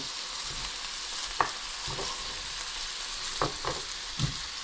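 Seasoned oxtail pieces frying in oil, a steady sizzle. Four short knocks stand out over it, the first about a second and a half in and three more near the end.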